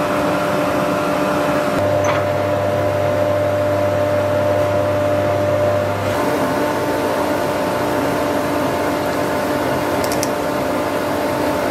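Wood lathe running steadily with a constant motor hum; a deeper hum joins about two seconds in and drops out about six seconds in.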